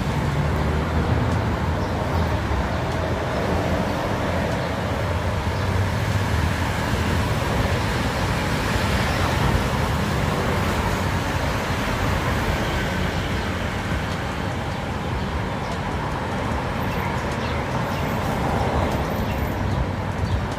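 Light city road traffic: cars and motorcycles driving past, a steady hum of engines and tyres.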